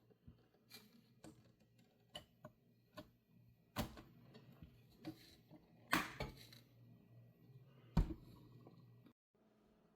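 Hard objects being handled: scattered light clicks and taps, with three louder knocks about two seconds apart, over a faint low hum that cuts off suddenly near the end.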